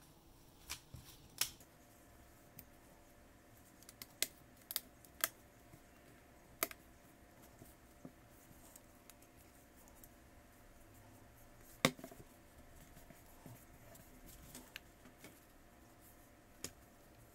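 Scattered sharp clicks and taps of small hand tools and tablet parts being handled during a screen replacement, irregular and a second or more apart, the loudest about twelve seconds in.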